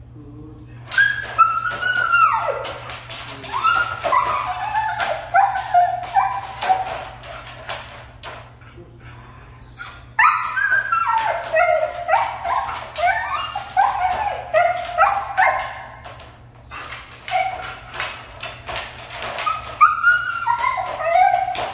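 Siberian husky in a wire crate whining and yipping: runs of short calls that slide up and down in pitch, in two long bouts with a pause of about two seconds between them, with clicks and knocks in between.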